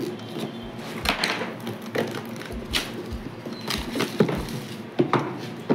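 Clear plastic shrink-wrap crinkling and crackling in irregular bursts as it is peeled off a phone's cardboard retail box, with a few sharp knocks of the box being handled on the table.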